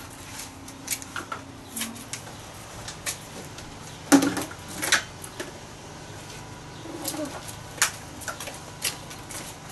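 Scattered light knocks, clicks and rattles of household junk being picked up and moved about in a cluttered storage shed, with one sharper knock about four seconds in.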